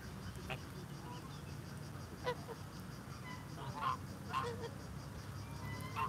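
Domestic geese on a pond giving a few short, scattered honks, one every second or so.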